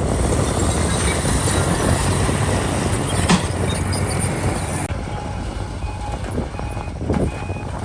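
Heavy diesel earthmoving machinery running under load, a bulldozer and dump truck, with a deep steady engine rumble and clanking, and one sharp knock about three seconds in. A row of short, high-pitched beeps sounds over the last couple of seconds.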